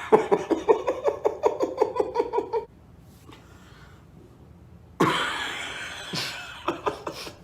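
A person laughing in rapid, even pulses for a couple of seconds, then a lull, then a few sharp clicks.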